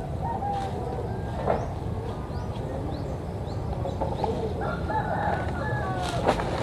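Outdoor ambience with a steady low rumble and birds calling, including a longer pitched call about four and a half seconds in. Two sharp knocks stand out, about one and a half seconds in and near the end, the second the louder.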